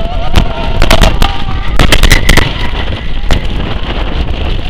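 Roller coaster train running along its track: a steady low rumble with wind on the microphone and a series of sharp clacks and knocks, thickest from about one to two and a half seconds in.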